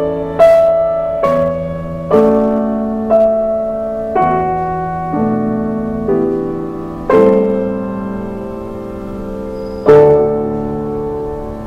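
Slow background piano music: single notes and chords struck about once a second, each ringing and fading, with a longer held passage and a louder chord near the end.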